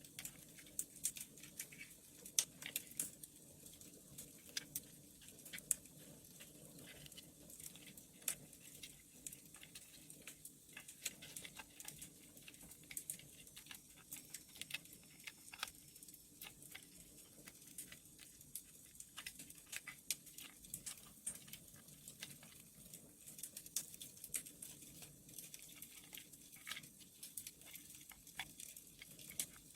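Wood fire crackling: irregular sharp pops and snaps of burning firewood over a steady low background.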